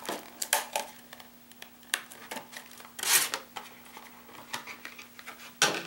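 A chatterbait's retail package being opened by hand: rustling and crinkling with small clicks, a louder rustle about three seconds in and another near the end.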